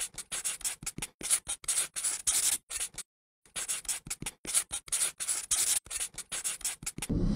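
Irregular scratchy rubbing or scraping noises in quick bursts, with a short break of dead silence about three seconds in. Music starts near the end.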